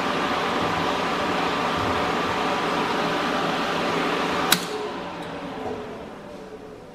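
Welder's cooling fans running steadily with a whirring hum. About four and a half seconds in there is a sharp click, and the fan noise then winds down over the next two seconds.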